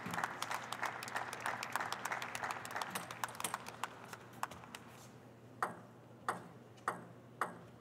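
Audience applause fading out over the first four seconds or so, then a table tennis ball bounced four times, a bounce about every half second or so.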